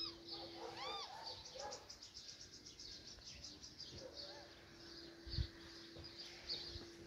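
Faint small-bird chirping: a few arching chirps, then a rapid high trill of about ten notes a second, and scattered chirps after. A steady low hum runs underneath, with a soft low bump about five seconds in.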